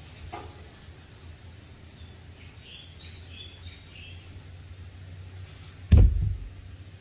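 Faint, short bird chirps about two to four seconds in over a low steady rumble, then a sudden loud low thump about six seconds in as the handheld camera is bumped while swinging round.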